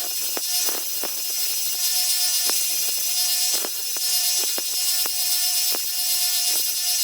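A 1-inch belt sander running with steel lineman's pliers held against the belt, giving a steady high grinding hiss with a motor whine. The whine breaks off and returns several times, with irregular light knocks as the pliers are moved on the belt.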